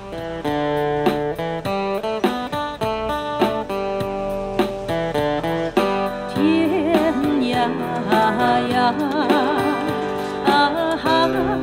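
Background music starts suddenly: an acoustic guitar picking and strumming chords, joined about six seconds in by a melody line with vibrato.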